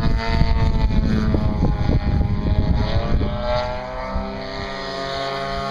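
Radio-controlled aerobatic model airplane flying overhead, its motor and propeller whining with a pitch that rises and falls and then holds steady. Wind buffets the microphone during the first half.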